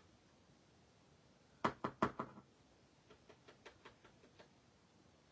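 A quick cluster of sharp knocks about a second and a half in, then a run of lighter taps, as the card is tapped against a plastic tray to knock excess white embossing powder off.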